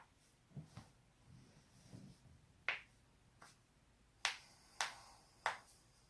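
Joints being cracked: four sharp pops, one a little before the middle and three in quick succession in the second half, with a few soft low thuds of movement in the first two seconds.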